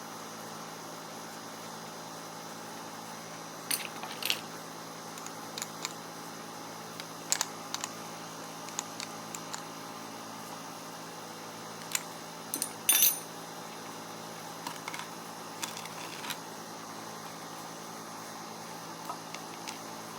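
Scattered light metallic clicks and clinks, like small metal parts being handled and set down, over a steady background hum; the loudest cluster of clicks comes about two-thirds of the way through.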